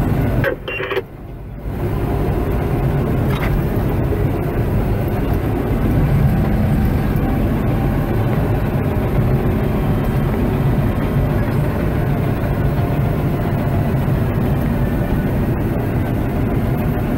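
Bulldozer's diesel engine running steadily, heard from inside the cab, with a short dip about a second in.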